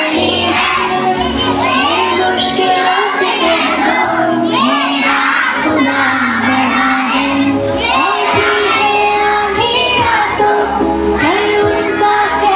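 A group of children singing a devotional prayer together, with music behind them.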